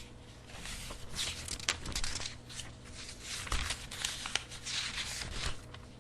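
Paper rustling and crinkling as book pages are turned and handled, with a few sharp clicks among the rustles.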